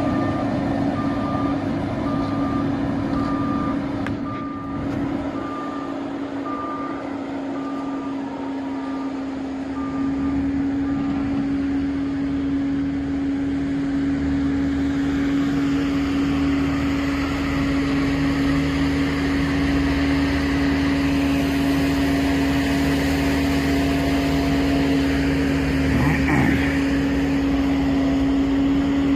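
Diesel engine of a heavy road-construction vehicle running steadily, with its reversing alarm beeping about once a second for the first ten seconds or so. The beeping stops and the engine grows louder.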